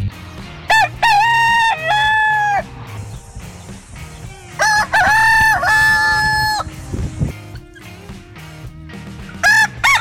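Rooster crowing cock-a-doodle-doo, three crows: one about a second in, one about five seconds in, and a third starting near the end.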